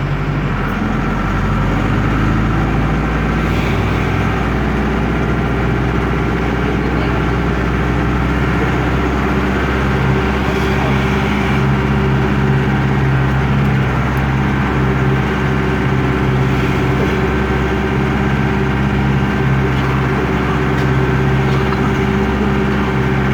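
Otokar M-2000 minibus's air-cooled Deutz F4L912 four-cylinder diesel running loud and steady; its note shifts in pitch during the first few seconds, then holds.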